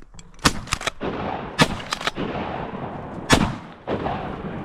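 Shotgun shots fired in quick succession, three loud reports a second or two apart with fainter cracks between them.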